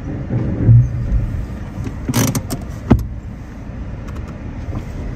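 Low rumble inside a car cabin with a few knocks and clicks, a sharp click near three seconds in.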